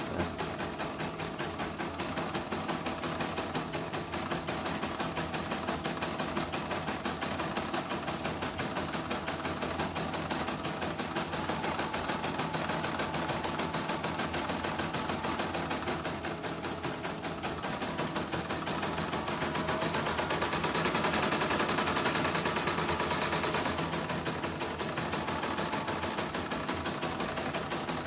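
Portable computerized embroidery machine stitching with its covers off: a steady, rapid run of even needle-stroke clatter. It is a test run with a newly replaced rotary hook, and the machine runs smoothly with no skipped stitches.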